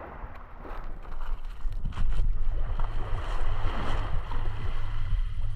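Wind buffeting the action camera's microphone, an uneven low rumble that grows louder about two seconds in, with the rustle of a towel being wrapped.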